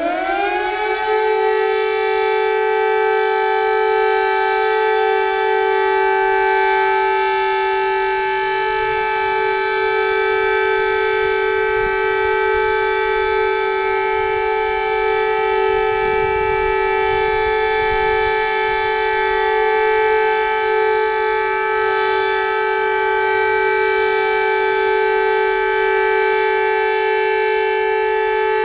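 Civil defence siren winding up to pitch in the first second, then holding a loud, steady two-tone chord, the steady alert signal. Near the end its pitch begins to fall as it winds down.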